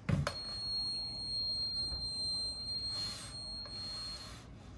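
A handheld electronic stud finder pressed to drywall clicks on and then sounds a steady high-pitched tone for about four seconds, its signal that it is reading something behind the wall, which the user takes for a possible double stud. A brief hiss about three seconds in.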